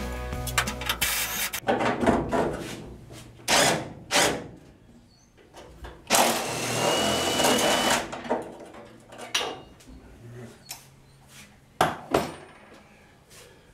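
Cordless 3/8-inch driver run in short bursts, with one longer run of about two seconds midway that carries a steady whine, backing out the bolts of a truck bed's front panel. Sharp metal clicks and knocks fall between the runs and near the end.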